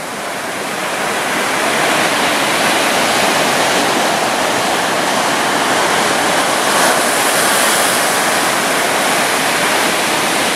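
Ocean surf: a wave washing up the sandy beach, a loud steady rush of water that builds over the first couple of seconds and then holds.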